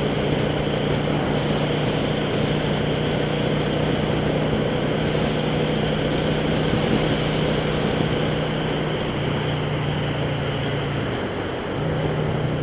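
Honda cruiser motorcycle at highway speed: a steady engine drone under constant wind and road noise. The engine note dips briefly near the end, then steadies again.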